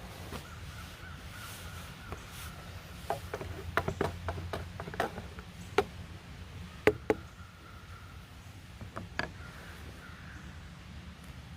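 A run of short, sharp knocks and clicks, bunched between about three and seven seconds in, over a steady low rumble.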